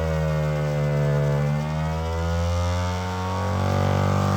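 Brushless DC motor spinning the magnet rotor of a KidWind GenX axial-flux alternator at high speed, giving a steady whine over a low hum. The pitch sags slightly in the middle and climbs back as an electrical load is put on the alternator.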